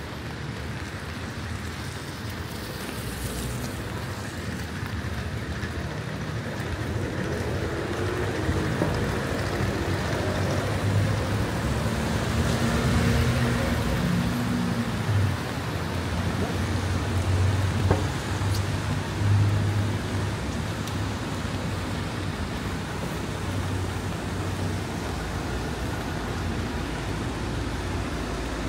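Wet street traffic: a steady hiss of rain and tyres on wet road, with a motor vehicle's engine humming close by, loudest through the middle stretch.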